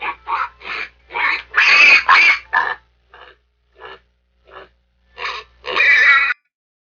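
Domestic pig calling in a run of short, harsh grunts and squeals. The loudest calls come about two seconds in and again near the end, with a few faint short grunts between them.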